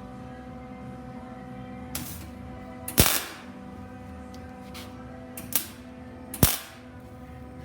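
Four sharp knocks over steady background music, the loudest about three seconds in and near the end, each with a brief ring.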